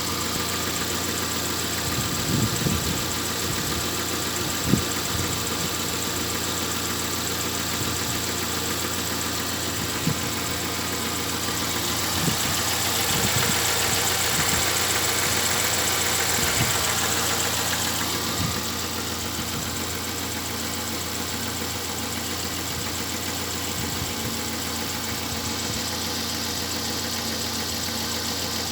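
Car petrol engine idling evenly at about 800 rpm, a normal idle speed after the P0507 high-idle fault was worked on. A few light knocks stand out, the sharpest about five seconds in, and the sound swells a little in the middle.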